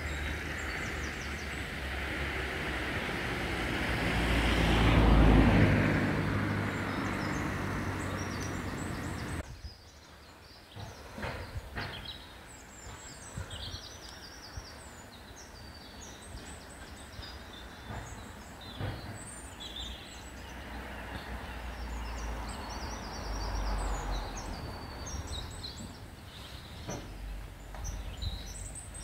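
Steam locomotives standing in steam at an engine shed: a steady rushing hiss over a low rumble, swelling to its loudest about five seconds in. Then it cuts away to quieter yard sound, with birds singing, occasional clanks and a faint rumble.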